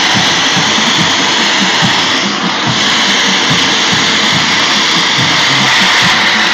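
A loud, steady rushing roar of a stadium crowd cheering, mixed with the hiss of a smoke machine blasting fog.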